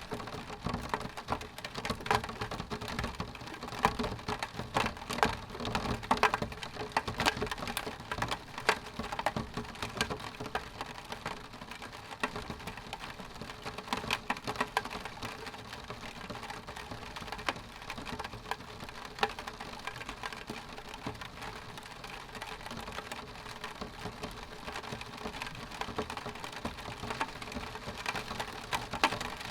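Rain falling on window glass: a steady rain hiss with many sharp ticks of drops striking the pane. The drop ticks are thickest in the first half and thin out later.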